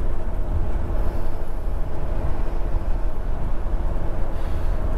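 Steady road and engine rumble heard from inside the cab of a moving Dodge RV, with a faint steady hum running under it.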